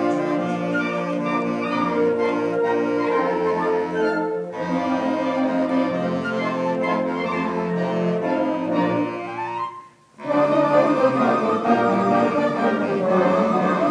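Instrumental ensemble music with held low notes under moving melody lines. About nine seconds in, a rising run leads into a brief pause, then the ensemble comes back in fuller.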